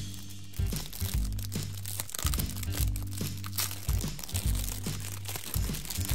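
Foil Pop-Tarts wrapper crinkling and rustling as it is pulled open by hand, over background music with a steady bass beat.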